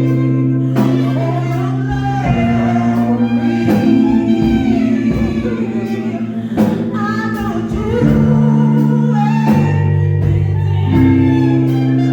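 A voice singing a slow song over an accompaniment of sustained chords that change every few seconds.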